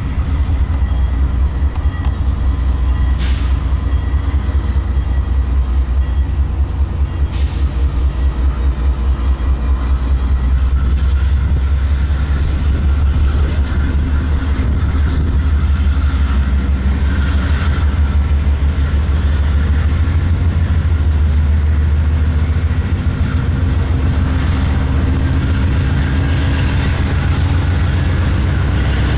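CSX freight train's diesel-electric locomotives approaching slowly, a steady deep engine rumble with a rapid throbbing pulse. Two brief sharp clicks come in the first several seconds.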